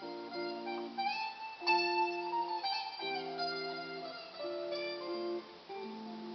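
Twelve-string electric guitar played solo, a slow melody picked over ringing chords.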